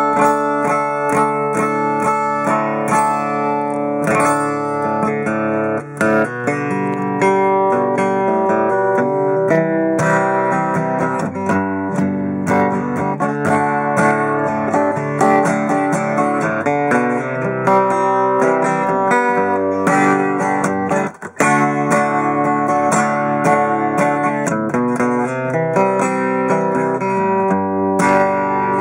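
A Martin SWDGT solid-wood dreadnought acoustic guitar being played continuously, its chords and notes ringing, with brief breaks about six seconds in and about twenty-one seconds in.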